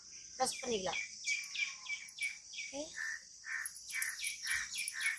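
A bird calling with short repeated notes, about three a second, over a steady high-pitched insect drone.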